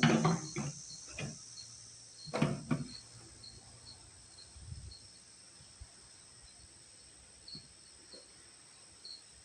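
Crickets chirping steadily in the background, about two chirps a second over a high insect hiss. Two short, louder sounds, like muttering or handling noise, come in the first three seconds.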